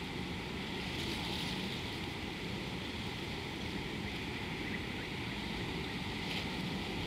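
Steady rushing outdoor background noise of wind on the microphone, with a couple of faint short high sounds about a second in and near the end.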